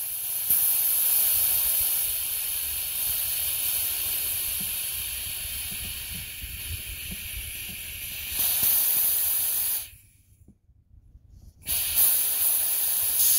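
High-pressure air hissing out of a .25 calibre Umarex Avenge-X PCP air rifle as it is degassed, bleeding its air down from about 2400 PSI toward 2000 PSI because 2400 is too much pressure for the gun. A steady hiss eases a little, swells again, and cuts off about ten seconds in; a second, shorter hiss follows about two seconds later.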